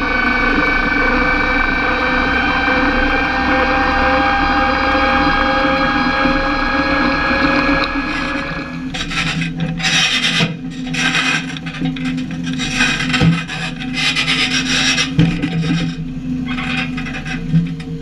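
JCB Fastrac tractor driving on the road, its engine and transmission whine slowly rising in pitch. About nine seconds in this gives way to an irregular rasping, scraping noise over a low steady engine hum.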